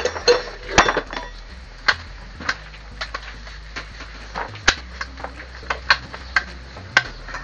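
Irregular metallic clinks and knocks, about two a second, from hand tools and steel parts being handled during reassembly of a Suzuki Multicab transmission.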